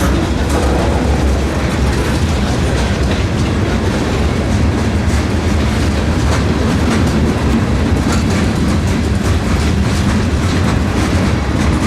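Freight train rolling past with a steady, loud rumble, its wheels clicking over the rail joints.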